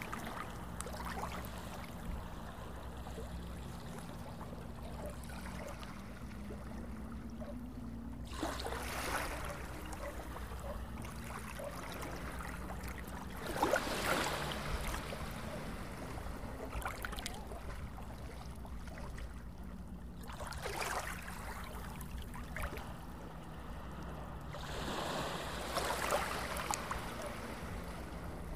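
Small waves lapping onto a sandy beach, washing in several times a few seconds apart, the loudest about halfway through, over a steady low hum.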